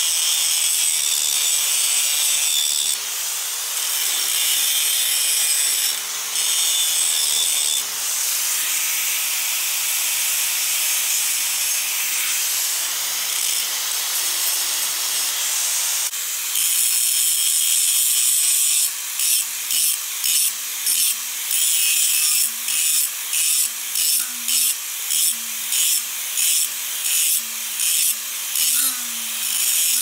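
Angle grinder grinding the steel of an old sawmill blade: a continuous hissing grind of disc on metal. In the last third the grind breaks off and comes back in short strokes, about one and a half a second.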